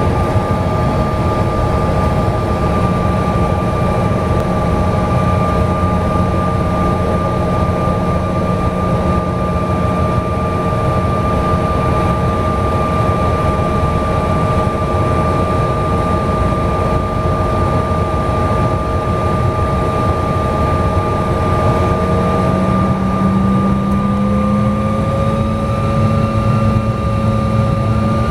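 Cabin sound of a CRJ-700's rear-mounted GE CF34 turbofan engines running at low power: a steady whine over a low rumble. About 23 seconds in, the pitch starts to rise as the engines begin to spool up for the takeoff roll.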